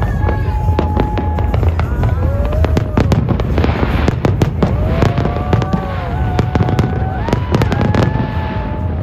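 Fireworks going off: a rapid run of bangs and crackles, thickest from about three seconds in, over a steady low rumble.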